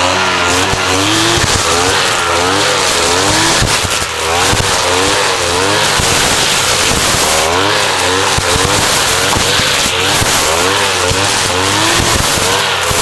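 Small engine of a Maruyama 420 grass cutter (brush cutter) running loudly, its speed swinging up and down about twice a second as the throttle is worked.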